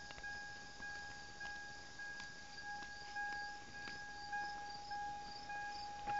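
Crickets chirping faintly: a fast pulsing high trill over a steady high tone, with a few light ticks.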